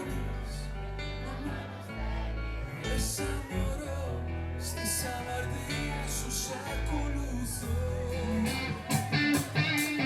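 Music: a song with guitar and a low bass line, with singing.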